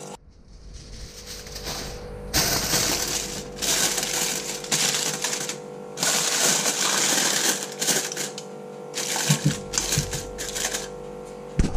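Aluminium foil crinkling and crackling in several bursts as it is pressed and crimped down over a bowl by hand.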